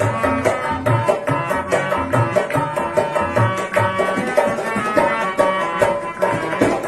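Harmonium and dholak playing an instrumental passage of a folk song: the harmonium holds a reedy melody while the dholak keeps a steady rhythm of deep bass strokes about twice a second with sharper slaps between.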